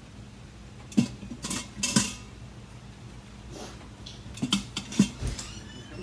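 Metal kitchen tongs clinking and clattering against cookware as seared chicken leg quarters are picked up and moved into a pressure cooker: several sharp clinks at irregular intervals.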